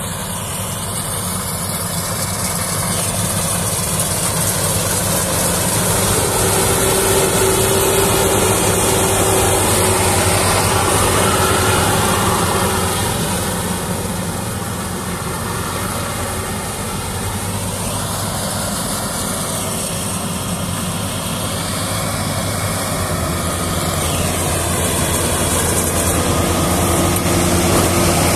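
Tracked rice combine harvester working in the paddy: its diesel engine running steadily under load with the whirr of the cutting and threshing machinery. It grows louder over the first few seconds, eases off around the middle, and swells again near the end as the machine comes close.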